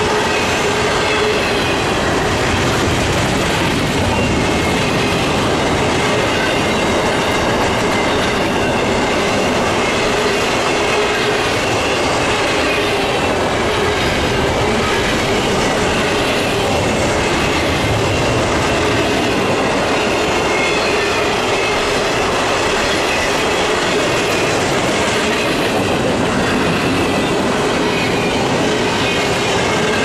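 Double-stack intermodal well cars rolling past at speed: a loud, steady rumble and clatter of steel wheels on the rails, with a thin squeal from the wheels running under it.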